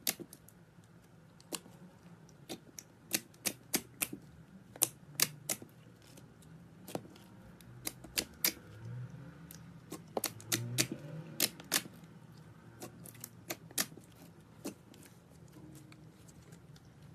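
Slime being squeezed and played with by hand, giving off sharp, irregular clicks and pops, several a second at times.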